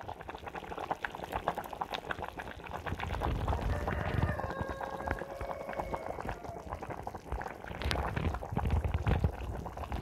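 Pot of pumpkin leaves and smoked beef in water at a rolling boil, bubbling and popping steadily with a low rumble, growing louder about three seconds in.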